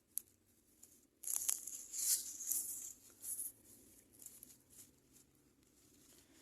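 A single click, then about two seconds of irregular, high-pitched rustling and crinkling that fades to faint traces.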